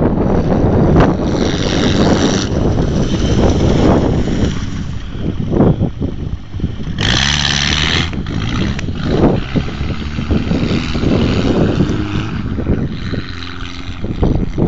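Renault 4 van's engine running and revving as it drives across a rough grassy field, its pitch rising and falling, with heavy wind noise on the microphone and a strong gust about seven seconds in.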